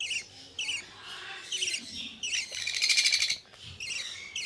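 Hand-fed parrot chicks calling: short high chirps every half second or so, with a louder, rapidly pulsed begging call about three seconds in.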